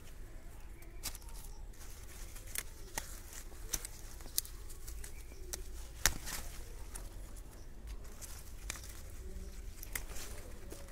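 Brinjal (eggplant) plant leaves and stems rustling and snapping as a hand reaches in and picks the fruit, with scattered sharp clicks over a low rumble.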